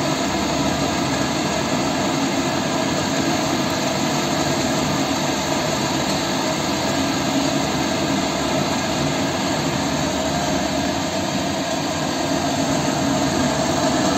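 Forced-draught natural-gas burner on a central-heating boiler, firing: a steady, unbroken rush of fan and flame with a constant hum. The burner has relit to reheat the boiler water after it fell to about 40 °C.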